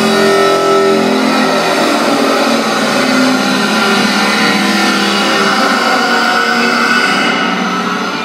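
Clansman Dynamics G30P grinder's abrasive disc grinding metal under load: a loud, steady grinding noise over a wavering motor hum. Near the end the disc lifts off the work and the sound eases.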